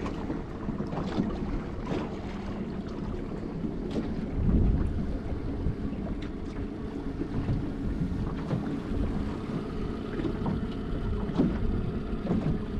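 Small fishing boat's outboard motor running steadily, with wind buffeting the microphone. A few light knocks come through, and a louder low bump about four and a half seconds in.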